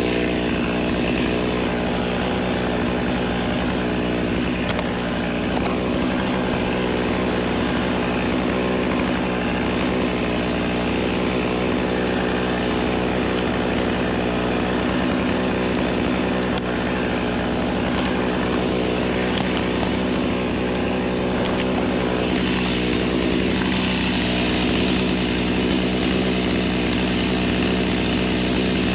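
Two-stroke gas chainsaw held at steady high revs, cutting through a palm trunk.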